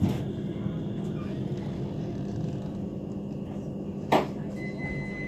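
Steady low hum of a Manchester Metrolink tram creeping into a stop, heard from inside. About four seconds in there is a sharp clunk, followed soon after by a steady high-pitched tone that carries on.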